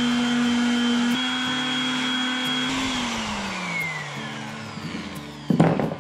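Electric detail sander with 120-grit paper running at a steady pitch as it sands the edge of a small block of pallet wood. About three seconds in it is switched off and its whine falls as the motor winds down. A short loud knock comes near the end.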